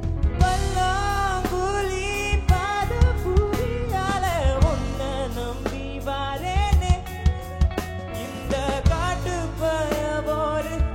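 A singer singing over a band with a drum kit, the voice bending and wavering between notes over a steady beat.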